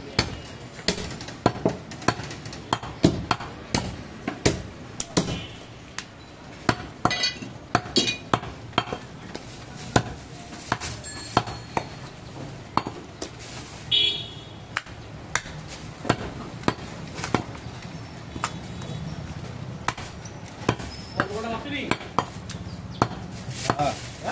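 Butcher's cleaver chopping goat ribs on a wooden stump chopping block: a run of sharp, irregular chops, about one or two a second.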